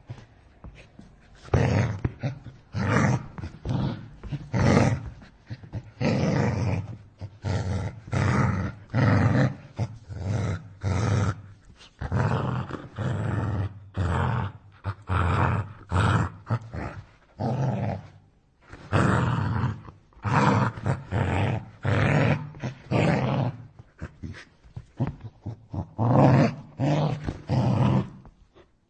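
A large dog growling aggressively in repeated short bursts, each under a second to about a second long, with brief gaps between them and a longer pause about two-thirds of the way through.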